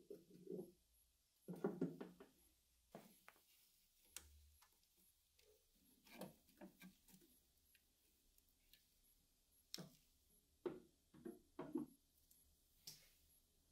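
Scattered light clicks and soft knocks of gloved hands handling and fitting parts of an enamelled metal train lantern, coming in small groups with short pauses between them.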